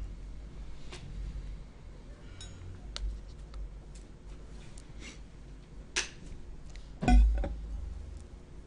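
Scattered light clicks and taps, with one louder knock about seven seconds in, over a faint low hum.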